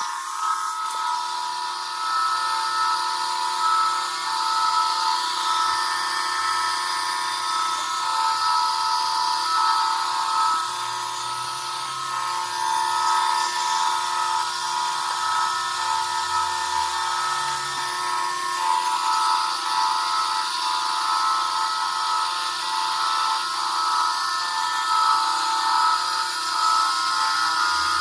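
Two Wild Turbo Fans, small high-speed cooling fans on the Traxxas Rustler VXL's motor and Velineon ESC heat sinks, running with a steady high-pitched whine of several tones.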